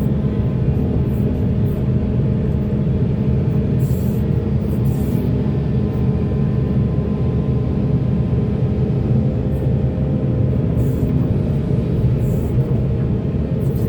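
Heavy diesel machinery running steadily at a constant pitch. Brief higher-pitched noises come and go, at about four, five, eleven and twelve and a half seconds.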